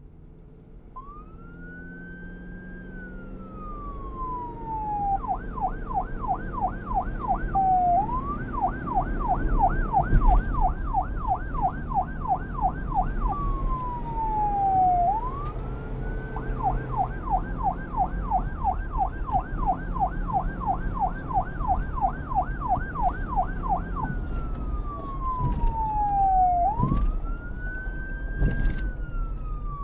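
Emergency-vehicle siren alternating between a slow wail and a fast yelp, over a low rumble. It grows louder over the first several seconds, with a few sharp thuds along the way.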